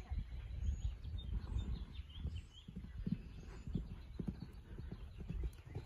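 A horse's hooves thudding irregularly on the sand footing of a riding arena as it canters, over a steady low rumble of wind on the microphone.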